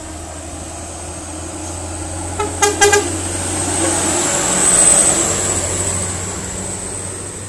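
Diesel engine of a small truck loaded with sugarcane, running steadily as it climbs and passes close by, loudest about five seconds in. About two and a half seconds in, a horn gives a quick series of short toots.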